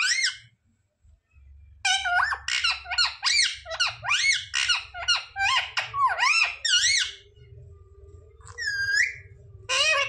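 Indian ringneck parrot (rose-ringed parakeet) making squeaky calls that swoop up and down in pitch, quickly one after another, about two to three a second for some five seconds, then a single falling call near the end.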